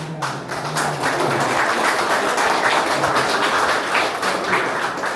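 Audience applauding: many hands clapping in a steady patter for about five seconds, dying away near the end.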